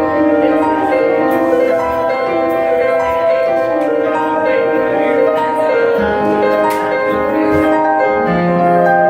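Instrumental music: a melody of held, keyboard-like notes over a steady accompaniment.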